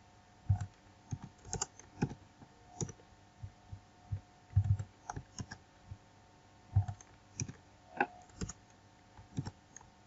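Computer keyboard keystrokes and clicks, coming singly and in small clusters with short pauses between them, as code is selected, copied and pasted.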